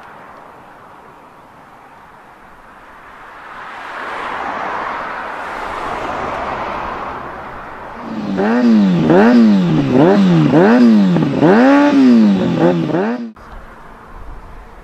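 Traffic passing on the road swells and fades. About eight seconds in, a Kawasaki Ninja ZX-6R's inline-four engine with an aftermarket M4 full exhaust is revved up and down in about half a dozen quick blips, then cuts off suddenly.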